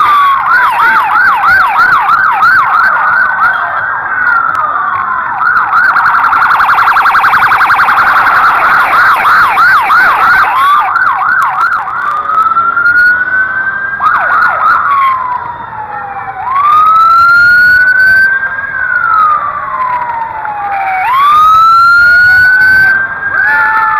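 Police motorcycle sirens, loud and overlapping. For the first ten seconds they run a fast yelp of about two to three sweeps a second, with a very rapid warble in the middle. About halfway through they change to slow wails that rise and fall over a second or two each.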